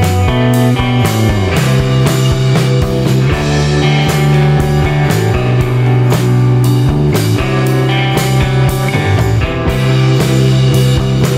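Rock music with electric guitar and a steady drum-kit beat.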